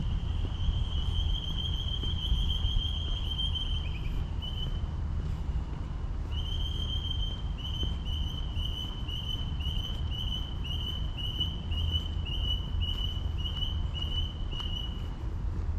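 A high-pitched whistling animal call, one steady note held for about four seconds, then, after a short gap, repeated as short even pulses about one and a half a second until it stops near the end.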